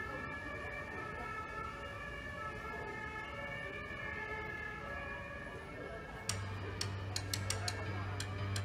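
Emergency-vehicle sirens playing as the sound of a miniature layout's simulated fire alarm, a steady wavering wail. About six seconds in, music comes in with a low bass note and a ticking beat.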